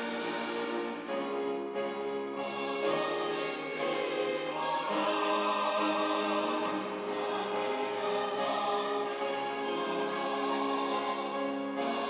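Mixed church choir of men's and women's voices singing a Sunday anthem in parts, with long held chords.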